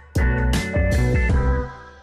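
Instrumental background music: sustained pitched notes over heavy bass, with a sharp hit just after the start.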